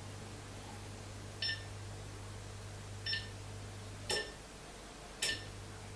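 Leeds 23SD electric fireplace beeping four short times, one beep per remote button press as the flame modes are switched. The last two beeps come with a sharp click. A low steady hum runs underneath and drops out briefly after the third beep.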